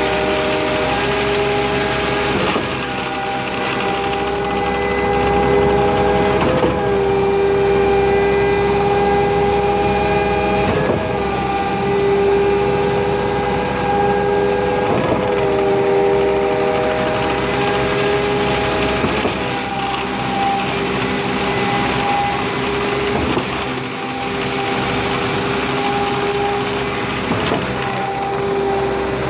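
Concrete pump running steadily under load, a mechanical drone with several steady tones, broken by a knock and a slight shift in pitch about every four seconds.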